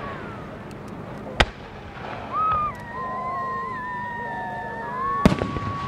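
Aerial firework shells bursting overhead: two sharp bangs with a trailing echo, one about a second and a half in and one near the end. Between them a long whistle holds near one pitch for several seconds.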